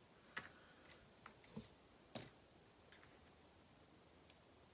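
Near silence with a few faint, scattered clicks and taps of small plastic model-kit parts being handled, the loudest about two seconds in.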